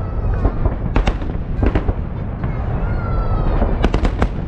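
Festive fireworks salute bursting: a dense run of bangs and crackles, with a cluster of sharp cracks about four seconds in, over a steady low rumble.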